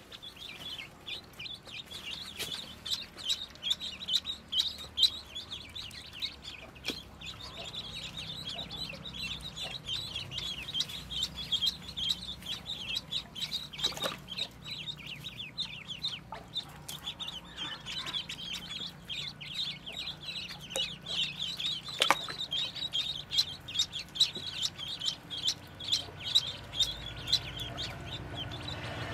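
A brood of ducklings peeping non-stop, a dense chorus of short, high, downward-sliding peeps, as they paddle about in a tub of water. A few sharp clicks stand out now and then.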